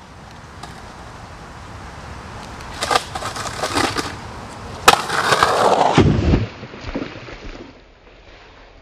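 Skateboard on concrete. The board knocks and clatters a few times, gives a sharp crack about five seconds in, then the wheels roll and scrape loudly, ending in a few thuds as the skater falls.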